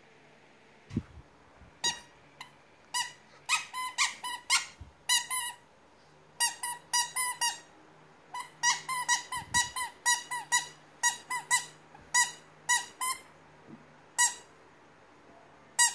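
Dozens of short, high-pitched squeaks, all at the same pitch, coming in quick irregular runs, with a couple of soft thumps among them.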